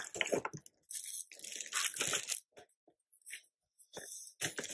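Plastic packaging crinkling and cardboard box inserts rustling as hands take bagged parts out of a product box, in irregular short bursts with brief gaps.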